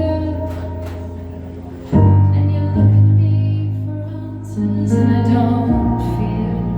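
Live music: a woman singing over sustained keyboard chords, the low notes changing about every two seconds.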